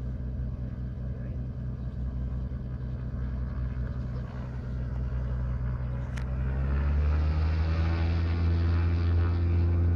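Cessna 206 floatplane's piston engine and propeller running steadily, then growing louder with a shift in pitch about seven seconds in.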